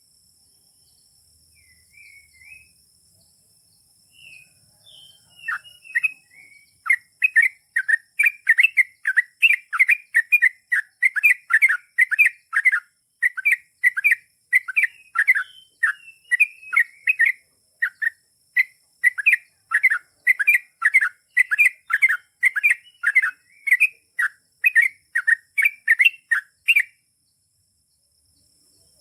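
Yellow-vented bulbul (trucukan) singing: a few scattered chirps, then about six seconds in a long, fast run of sharp bubbly notes, about two a second, which cuts off suddenly near the end.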